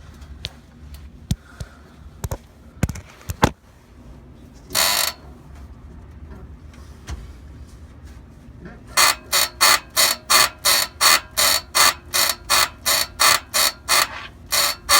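Bad suspension bushing on a 1995 Ford Explorer squeaking in a steady rhythm, about two to three short squeaks a second, starting about nine seconds in. Before that come a few scattered clicks and one short squeak.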